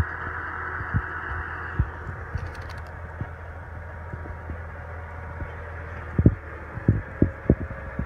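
Tractor engine running steadily as a low drone, which stops about six seconds in. Short low thumps on the microphone throughout, coming more often near the end.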